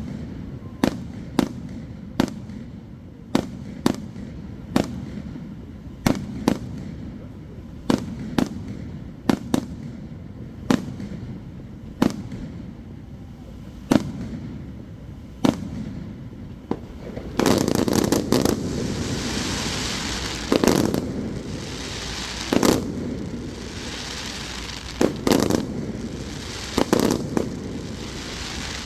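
Aerial fireworks going off: sharp shell bursts about once a second, then, from about two-thirds of the way in, a dense crackling with more bangs mixed in.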